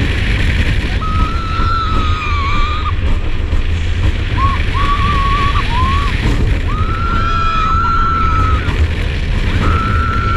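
On board the Olympia Looping roller coaster at speed: wind rumbling on the microphone throughout, with riders' long, held screams several times.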